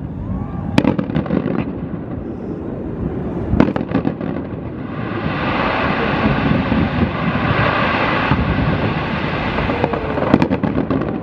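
Aerial fireworks going off: sharp bangs about a second in, two more around three and a half to four seconds, and a cluster near the end, with a dense stretch of crackling in the middle.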